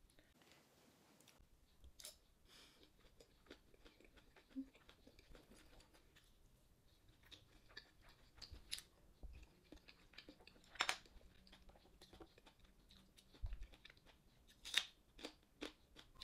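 Quiet eating sounds: chewing, broken by scattered sharp clicks and taps of utensils against dishes, the loudest about eleven and fifteen seconds in, and a soft thump about thirteen seconds in.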